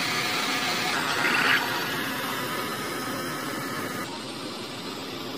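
Miniature water pump driven by a small motor, running steadily while water pours from its outlet pipe and splashes into a small concrete tank. The sound turns duller and a little quieter about four seconds in.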